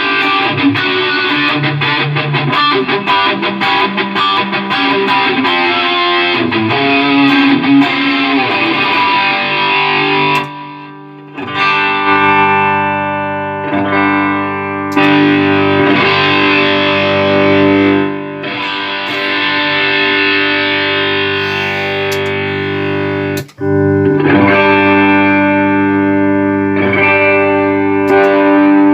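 Electric guitar played through a Line 6 Helix multi-effects processor in a sound test after repair. Quick picked riffing comes first, then a short pause and long held chords that ring out, broken once briefly before ringing on again.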